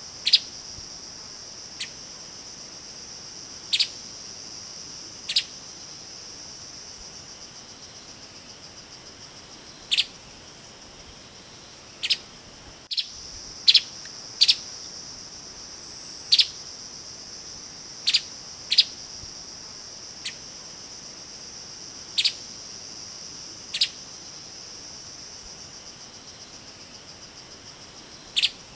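Streaked spiderhunter giving short, sharp single call notes at irregular intervals, about every one to two seconds with some longer gaps, over a steady high-pitched insect drone.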